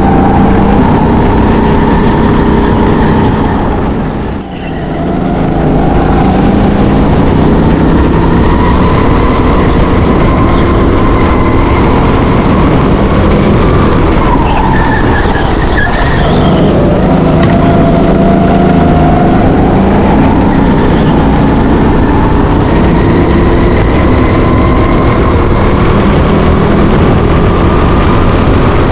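Go-kart engine running hard on track, close to the microphone, its pitch rising and falling repeatedly with acceleration and lifts. The sound drops sharply for a moment about four seconds in.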